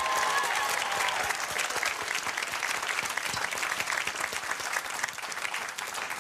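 Studio audience applauding, dense clapping that eases off a little near the end.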